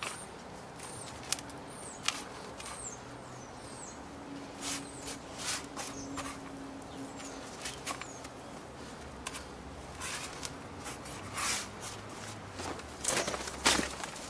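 Gloved hands pressing and smoothing loose potting compost around a young avocado tree in a large pot: soft, irregular crunching and scraping of soil, with a louder scrape near the end. A bird chirps high in the background during the first few seconds.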